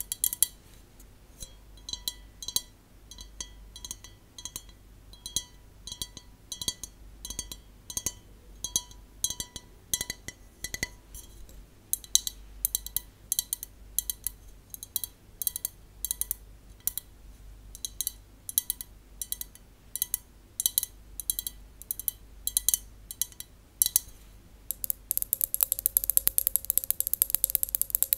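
Long fingernails tapping a clear drinking glass: a steady run of sharp glassy clinks about two a second, each with a short ring. Near the end the tapping turns fast and dense.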